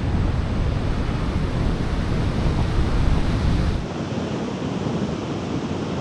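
Storm surf breaking and washing up a sandy beach, with strong wind buffeting the microphone. The low wind rumble drops away abruptly about four seconds in, leaving the hiss of the surf.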